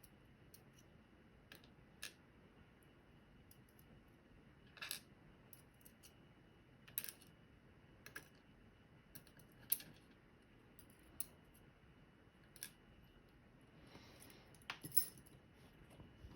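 Faint, irregular small metal clicks and taps as the key pins are lifted out of a Medeco Original lock's plug one by one and set down.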